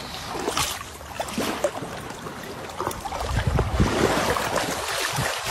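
Sea water splashing and sloshing around dogs swimming close to the microphone, with a low rumble on the microphone that grows stronger about three seconds in.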